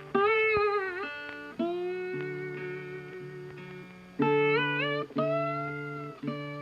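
Background music: plucked guitar notes, several bending in pitch like a slide guitar, each struck sharply and fading away.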